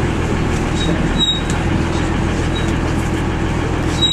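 Bristol MW single-deck bus under way, its diesel engine running steadily with a dense low rumble and rattle, heard from the driver's cab. A brief thin high squeal comes about a second in and again at the end.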